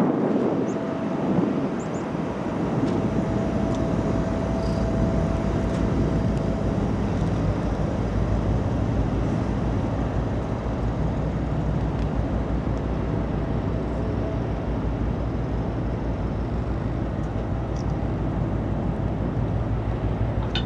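Deep, steady engine drone of a large ship passing close by, with a faint thin whine for the first few seconds.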